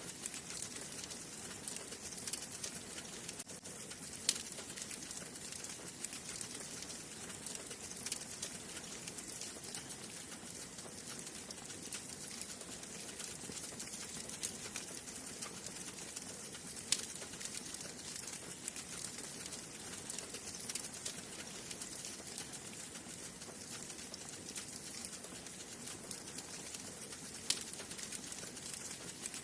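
Wood fire burning in a fireplace: a steady soft hiss with frequent small crackles and a few sharper pops, the loudest about 4, 17 and 27 seconds in.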